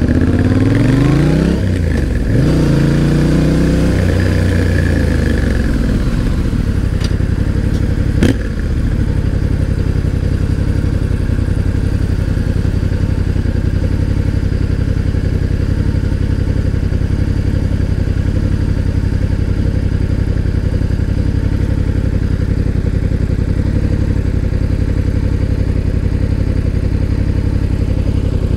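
Yamaha Ténéré 700's parallel-twin engine revving up and down through a gear change in the first few seconds, then settling to a steady idle for the rest. A single sharp click about eight seconds in.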